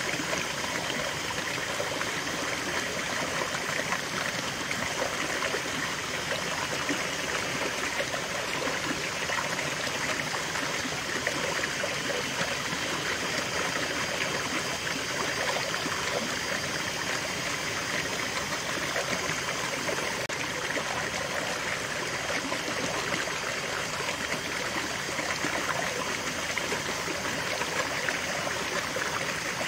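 Shallow rocky stream: water spilling in a small cascade between boulders and splashing into a pool, a steady mix of rushing and trickling.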